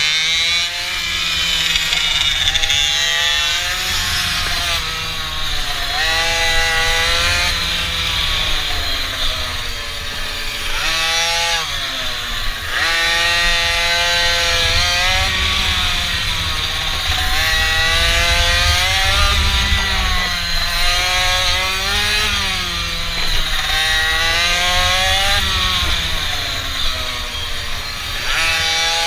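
Small mini bike engine revving up and down over and over as it is ridden, its pitch climbing and dropping every second or two. A constant low rumble runs underneath.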